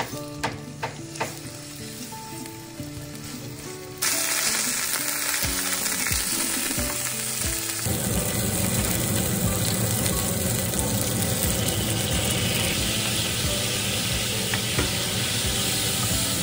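Chicken breast frying in avocado oil in a nonstick pan. A loud, steady sizzle starts suddenly about four seconds in. About halfway through it turns fuller and bubblier as soy sauce is poured into the hot pan and a wooden spoon stirs it. Before the sizzle there is only soft background music with a few light clicks.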